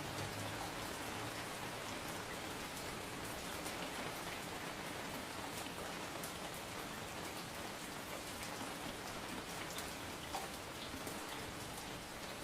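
Steady rain falling, an even hiss with scattered droplet ticks.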